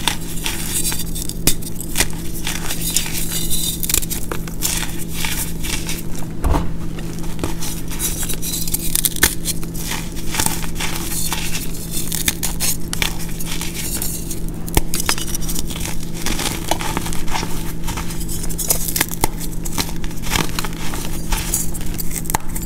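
Hands crumbling and crushing pressed blocks of reformed gym chalk powder, mixed with baby powder, corn starch and baking soda. The blocks give a dense, continuous run of crisp crunches and crackles as they break apart into loose powder, over a steady low hum.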